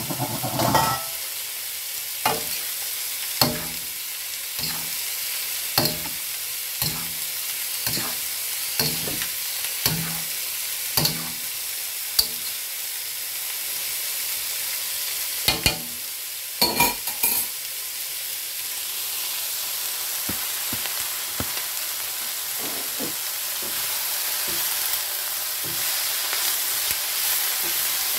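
Noodles and chicken sizzling in a hot steel wok while a slotted metal spatula tosses them, knocking and scraping against the wok about once a second. A few louder clatters come around the middle, after which the steady sizzle carries on with only occasional light taps.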